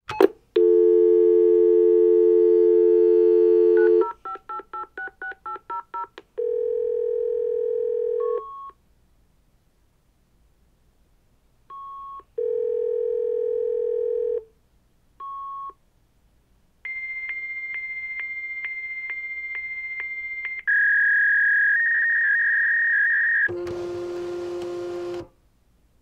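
A fax machine placing a call: a dial tone, a quick run of keypad dialing tones, then the ringing tone on the line alternating with short, higher calling beeps. About seventeen seconds in the answering fax comes on with a high steady answer tone, then a warbling handshake and a short burst of hiss as the modems connect, which stops abruptly near the end.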